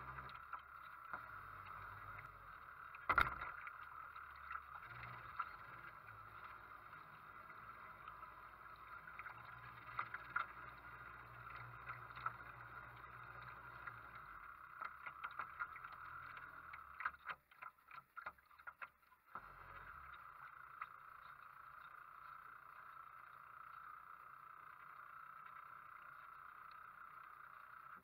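Lake water lapping and sloshing at the waterline close to the microphone, a steady low hiss with scattered small splashes and knocks. One sharp knock about three seconds in, and the sound breaks up for a couple of seconds past the middle.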